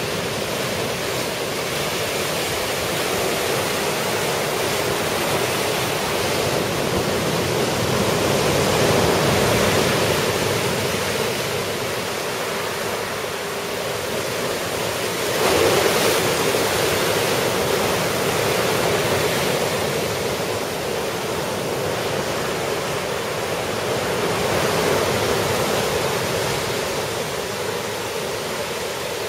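Ocean surf breaking on the beach in a typhoon swell: a continuous wash of breaking waves that swells and eases, with one sudden louder wave break about halfway through.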